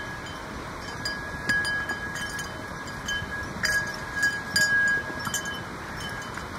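Bells on a running herd of horses ringing and jangling, with a few louder clangs in the middle, over the steady rush of a mountain river.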